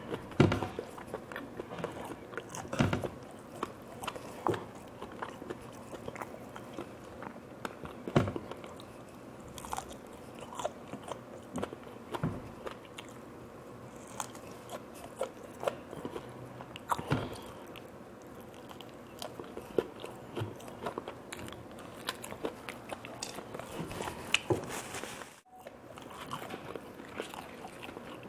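Close-up eating sounds: a person biting and chewing food with irregular crisp crunches and wet mouth clicks, eating grilled tiger prawns with raw carrots and lettuce.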